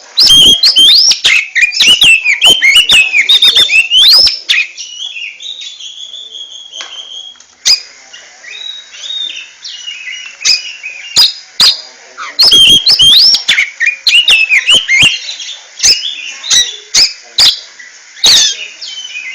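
Oriental magpie-robin (kacer) singing loudly: rapid, varied phrases of whistles and rising and falling glides mixed with sharp clicking notes. The song comes in two dense bursts, the first stopping about four seconds in and the second starting about twelve seconds in, with sparser, quieter phrases between.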